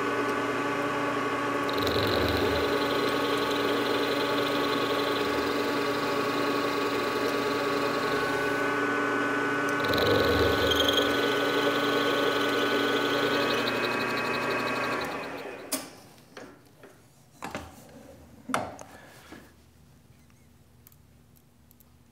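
Milling machine spindle running with a high-speed steel boring bar in a boring head, taking a boring pass on power downfeed: a steady motor and gear whine, with a higher whine coming in twice. About 15 seconds in the spindle winds down, followed by a few sharp clicks and knocks of the machine's handles.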